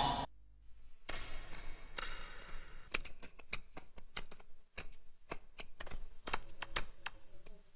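A run of sharp, irregular clicks and taps, about two or three a second, starting about three seconds in and stopping near the end.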